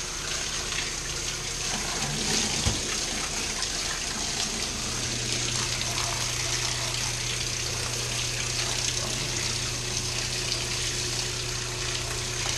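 Handheld shower head spraying a steady stream of water over a muddy RC truck and the shower pan, a continuous hiss of running and splashing water. A low steady hum joins about five seconds in.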